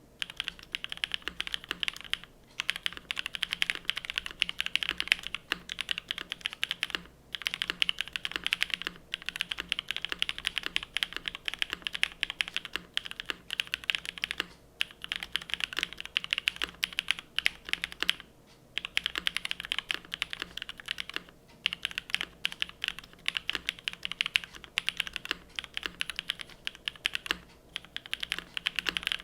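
Fast, continuous typing on a custom Cloudline TKL mechanical keyboard built with BCP frankenswitches, a polypropylene plate, an O-ring mount and GMK keycaps. Rapid key clacks come in runs, with several brief pauses between bursts.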